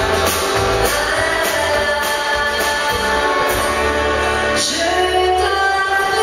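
Live band music: a woman sings into a microphone over electric guitar and drums, with evenly spaced cymbal strokes keeping the beat.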